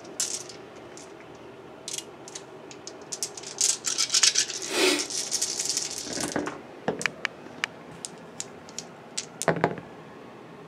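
A handful of plastic six-sided dice clicking as they are gathered, then shaken in cupped hands, rattling densely for a couple of seconds about midway, with a few more clicks of dice knocking together near the end as they are rolled out.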